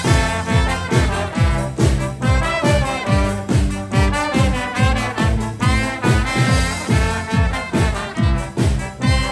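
Brass band music with a steady beat: brass lines over a low bass note about twice a second, in the manner of an oompah band.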